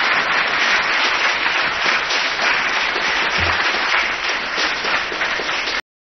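Audience applauding steadily at the end of a talk, until the sound cuts off abruptly near the end.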